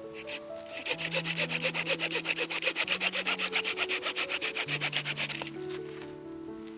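Fast, even rubbing or scraping strokes, about ten a second, starting about a second in and stopping near the end, over background music.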